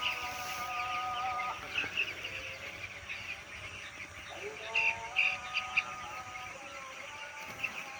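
A flock of broiler chicks peeping constantly, with a few louder clusters of peeps, over background music.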